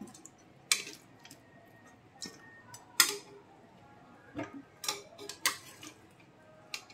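Metal spatula clinking and scraping against a steel kadhai and a steel bowl as fried chicken pieces are lifted out and dropped in: a scattering of short sharp clinks, the loudest about a second in and again about three seconds in.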